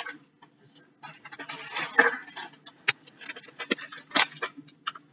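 Clear plastic packet of chocolate chips being handled and opened, crinkling and crackling in many short, irregular clicks.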